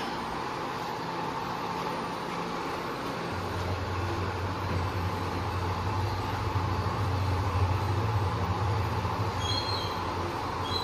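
Steady rumble of a vehicle running, with a low hum that grows stronger about three seconds in and holds.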